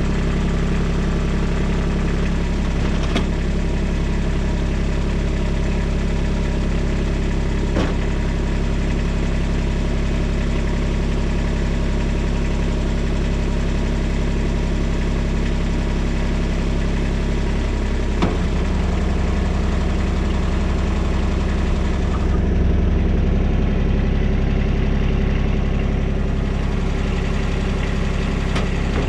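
Kubota excavator's engine running steadily, with three sharp knocks spread through. The engine note shifts about two-thirds of the way in and grows a little louder for a few seconds.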